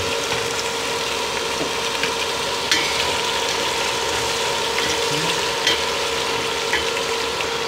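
Boiled mutton pieces sizzling steadily in hot oil with fried onions and spices in a steel pot, stirred with a spatula that clicks against the pot a couple of times. This is the meat being fried (bhuna) before the rice goes in.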